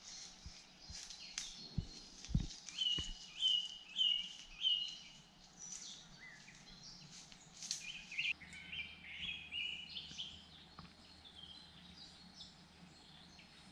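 Several birds singing and calling over a faint steady background, including a run of short repeated notes a few seconds in. A few soft low knocks sound about two seconds in.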